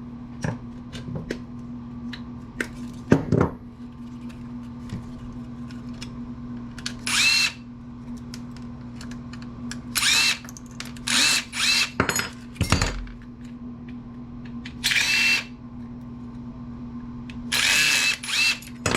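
Power drill-driver running in about seven short bursts, its pitch sliding up and down as it backs screws out of an amplifier chassis. Light clicks and knocks of metal parts come between the bursts, over a steady low hum.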